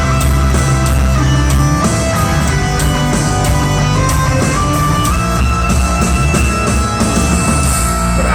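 Live hard rock band playing an instrumental passage: electric guitar holding long notes over bass and drums.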